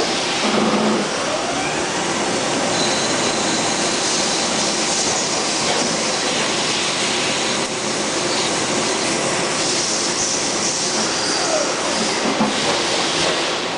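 Mazak Quick Turn 20N CNC lathe running: a steady mechanical whir and hiss, with a faint rising whine about a second in.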